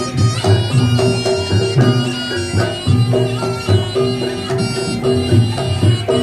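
Reog Ponorogo gamelan music: a nasal reed wind instrument, the slompret shawm, plays a melody over steady low drum beats.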